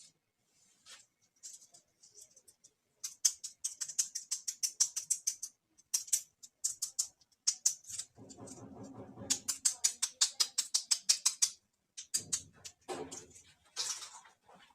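Handling of small plastic dollhouse toy pieces and packaging: quick runs of crisp little clicks and scratches, with a short buzzy rasp about eight seconds in.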